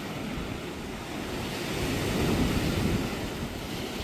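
Lake Huron waves washing onto the shore in a steady surf, swelling louder about halfway through.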